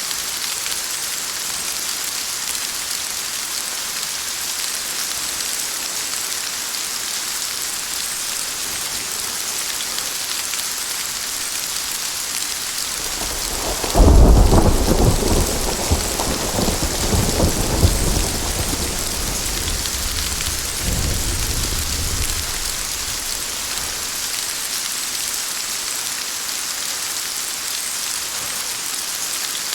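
Steady rain falling, with a sudden thunderclap about halfway through that rolls on in rumbles for several seconds before fading back under the rain.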